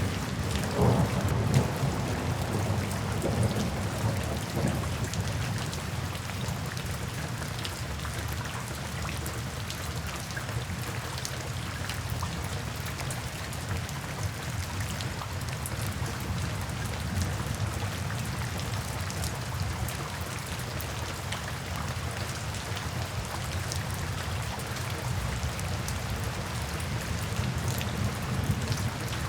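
Steady rain falling into puddles and standing water, dense with fine individual drop splashes. A low rumble of distant thunder runs through the first few seconds and fades away.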